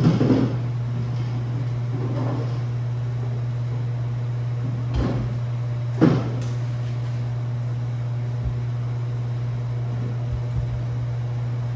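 Metal clanks and knocks of a wheeled engine cart carrying an engine as it is rolled off a pickup's liftgate onto the shop floor, the loudest right at the start and about six seconds in, over a steady low hum.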